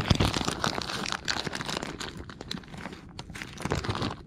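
A zip-top plastic bag of soft plastic fishing worms crinkling and rustling as it is handled and rummaged through, loudest in the first second or so.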